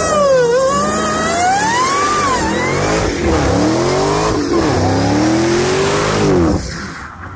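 Supercharged 6.2-litre Hemi V8 of a Dodge Challenger Hellcat Redeye revving hard through a burnout, rear tyres spinning. The pitch climbs and falls several times, then the engine drops off about six and a half seconds in.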